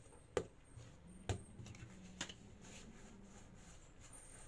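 Quiet handling of bread dough being rolled by hand into a baguette on a marble worktop, with three sharp knocks on the worktop about a second apart.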